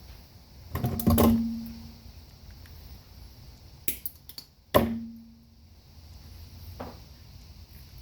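Metal tool and wire being handled: two sharp metallic knocks, each with a short ringing tone that dies away, about one second in and just before five seconds, with a few lighter clicks between and after.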